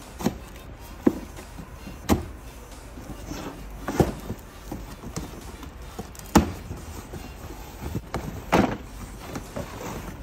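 Cardboard box and packaging being opened and handled by hand: scattered sharp knocks and scrapes, one every second or two.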